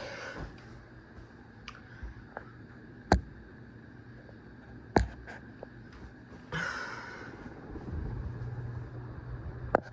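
Flush-mounted (hugger) ceiling fan running with a low, steady hum. Two loud sharp clicks come about three and five seconds in, a few fainter ticks fall around them, and a short rustle comes about six and a half seconds in.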